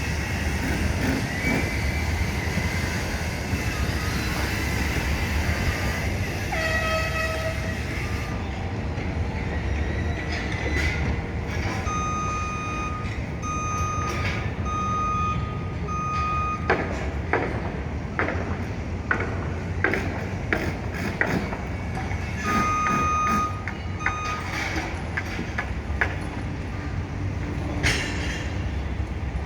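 Steady low rumble of construction-site machinery and city traffic, with a vehicle's reversing alarm beeping about once a second in two short runs and scattered knocks and clanks.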